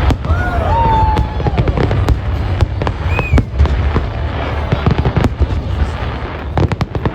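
Fireworks display: a dense run of bangs and crackles from bursting shells over a heavy low rumble, with a couple of short whistling glides.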